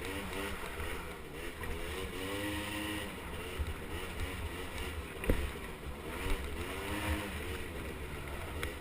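Small 50cc two-stroke mini ATV engines buzzing, their pitch rising and falling over and over as the throttle is worked, with one sharp knock about five seconds in.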